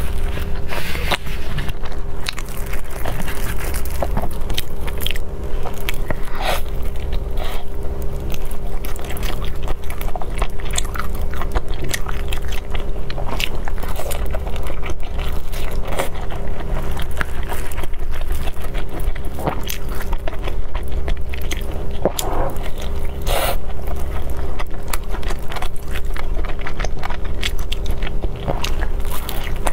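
Close-miked biting and chewing of pan-fried dumplings, with many small wet mouth clicks, over a steady low hum.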